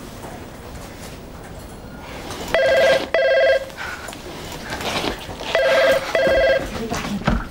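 Telephone ringing in the British double-ring pattern: two short trilling rings, then another pair about three seconds later.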